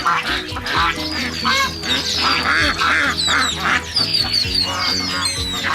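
Several ducks quacking over and over in short rough calls, with background music playing under them.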